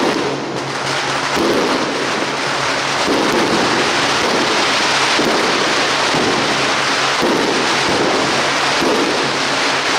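Strings of firecrackers going off in a dense, continuous crackle.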